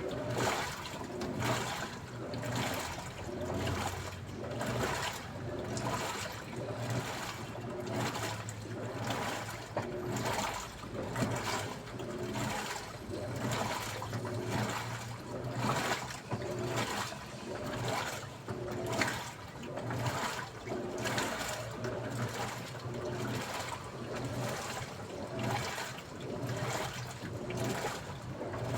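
Daewoo washing machine washing: water sloshing in the drum in regular swishes about once a second, over a steady low motor hum.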